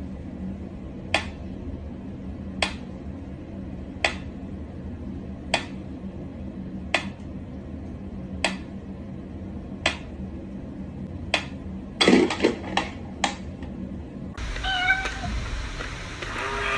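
Mechanical pendulum metronome ticking slowly and evenly, about one tick every second and a half. About twelve seconds in comes a quick flurry of clicks. Near the end a different, louder sound follows, with a wavering meow.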